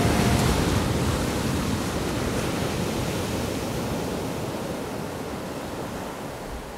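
A steady rushing noise, fading out slowly.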